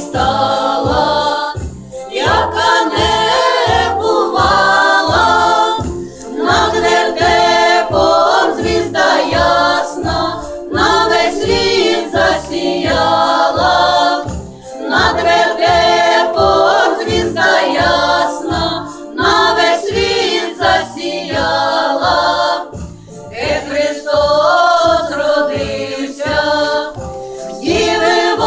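A group of voices singing a Christmas carol over an accompaniment with a steady low beat, about two beats a second.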